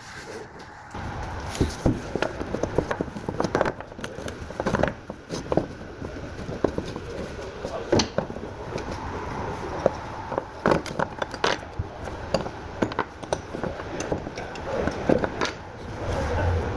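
Irregular metal clicks, knocks and clinks of a grease gun's parts being handled and worked on by hand, over a low background rumble.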